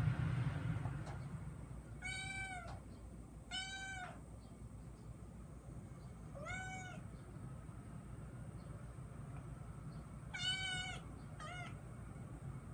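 Kitten meowing five times, each call rising then falling in pitch, the last one short, over a steady low hum.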